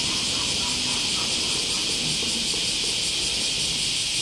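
Cicadas in a steady high-pitched chorus, an unbroken shimmering hiss with no pauses.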